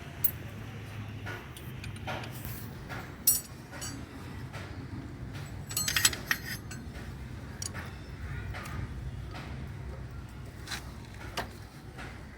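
Hand tools and metal bike parts clinking and tapping during motorcycle repair work, with a few sharp ringing strikes about three and six seconds in, over a steady low hum.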